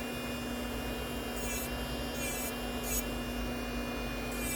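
Melody Susie Atena cordless nail drill running with a steady hum while its fine bit grinds dip powder off a fingernail in short, repeated scratchy passes.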